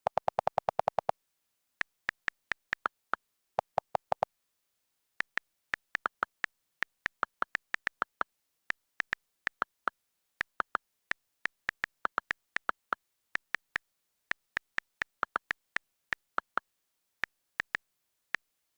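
Sharp clicks in irregular runs: a fast burst of about a dozen in the first second, then scattered groups of clicks, with dead silence between them.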